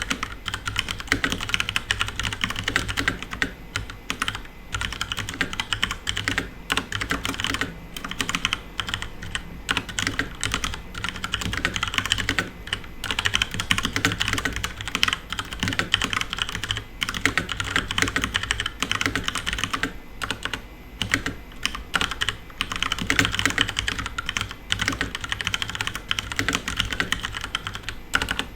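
Fast, continuous typing on a FILCO Majestouch Ninja Tenkeyless mechanical keyboard with Cherry MX Brown tactile switches: a dense run of key clacks with brief pauses now and then.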